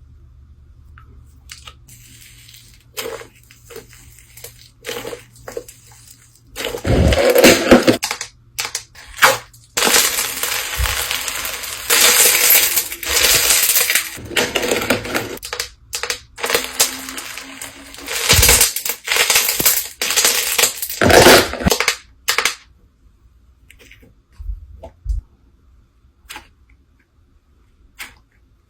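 Slime being pressed and stretched by hand, giving a run of sharp pops, clicks and crackles. The sounds come thick and loud through the middle and thin out to a few soft clicks near the end.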